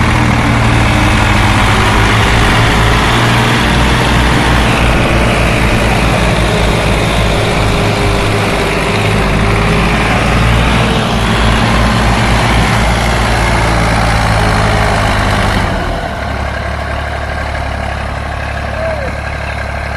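Massey Ferguson tractor diesel engines running hard under load, towing a heavily loaded trolley that is stuck in mud. The engine sound drops noticeably about sixteen seconds in.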